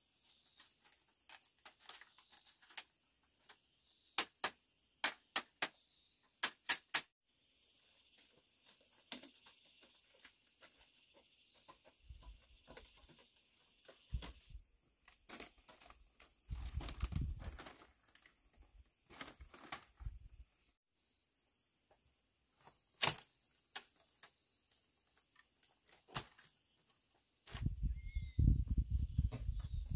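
Split bamboo strips clicking and knocking sharply as they are handled and woven into a mat panel, a quick cluster of loud clicks a few seconds in, over a steady high chirring of insects. Low thudding and rumbling near the end.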